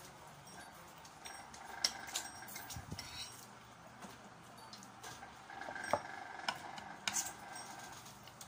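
Eating utensils clinking and tapping against plates and bowls in scattered light clicks, a few sharper ones standing out.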